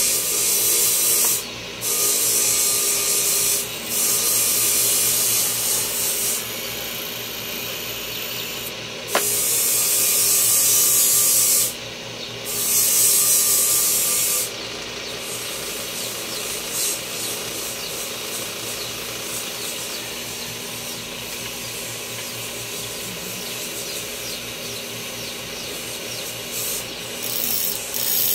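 Abrasive grinding against a steady hum, in loud passes of about two seconds with short breaks between them; from about halfway the rubbing is lighter and quieter.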